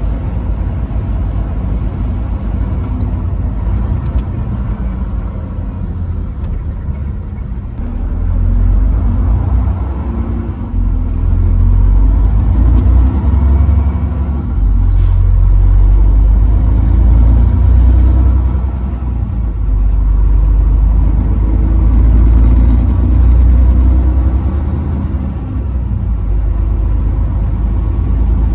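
Truck engine and road noise while driving: a steady deep rumble that swells louder about eight seconds in and rises and falls after that.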